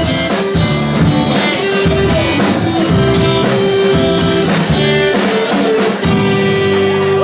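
Live rock band playing an instrumental passage on drum kit, guitar and bass, the closing bars of a song; about six seconds in the drumming stops and a final chord rings on.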